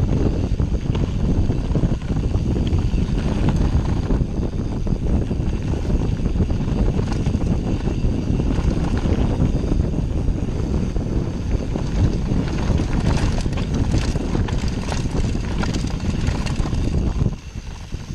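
Wind buffeting the microphone and mountain-bike tyres rolling over a dirt trail make a steady low rumble, with clattering knocks from the bike over rough ground about two-thirds of the way through. The noise eases briefly near the end.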